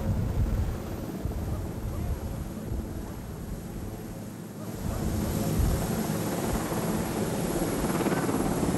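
Sikorsky VH-3D Sea King helicopter (Marine One) running on the ground with its main rotor turning: a steady turbine and rotor rumble that grows louder about five seconds in.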